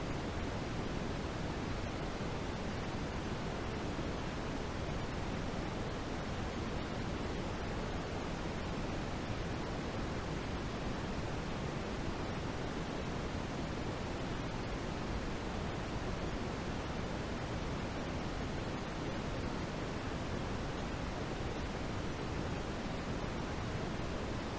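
Steady white-noise sleep sound: an even, unchanging hiss, heavier in the low end than at the top, close to pink noise.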